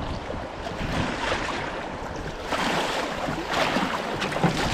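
River water splashing and rushing around a landing net held in the current beside a drift boat, with wind on the microphone. The splashing grows louder about halfway through.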